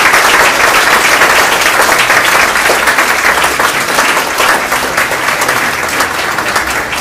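Audience applauding, a dense patter of many hands clapping that slowly dies away over the last few seconds.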